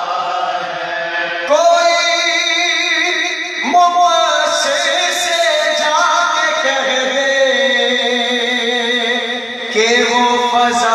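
Male voices chanting a marsiya, a Shia mourning elegy, unaccompanied. Long held notes waver in pitch, and new phrases start about one and a half, four and ten seconds in.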